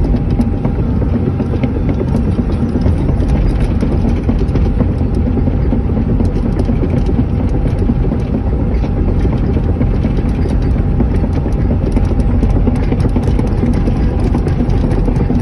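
Hydraulic excavator's diesel engine running steadily as the machine tracks along, heard from inside the cab.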